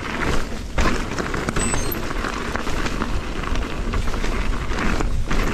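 Electric mountain bike ridden over a rough trail: steady wind rush on the microphone, with the tyres and bike rattling over the ground.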